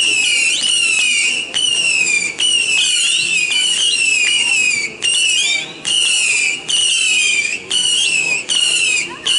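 Whistling fireworks going off in quick succession, about one burst a second. Each burst is several shrill whistles falling in pitch together, sounding like a bunch of birds.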